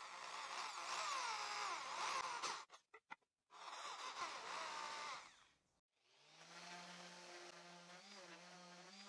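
Makita electric hand drill boring into a pine strip in two faint bursts, its pitch sliding as the speed changes, with a few clicks between the bursts. After a short silence a Makita random orbital sander starts up about six and a half seconds in and runs with a steady buzz.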